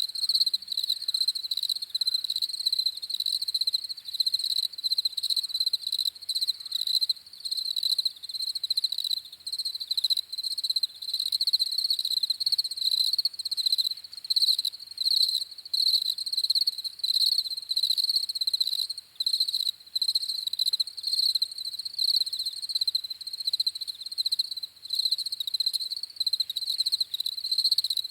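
Crickets chirping in a rapid, continuous pulsing trill, high-pitched and steady.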